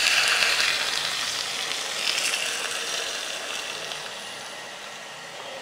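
Hot sunflower oil sizzling and bubbling as it is poured from an enamel pot into glass jars of fried zucchini, garlic and dill. The hiss is loudest at the start, swells again about two seconds in, then dies away.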